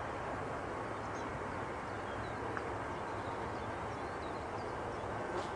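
A steady rushing background noise with a low hum, and a few faint, high, short bird chirps scattered through it.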